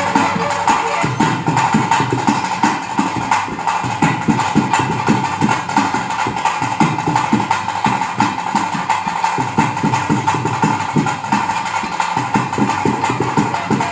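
Traditional bhuta kola ritual music: fast, steady drumming with a high, sustained tone held over it.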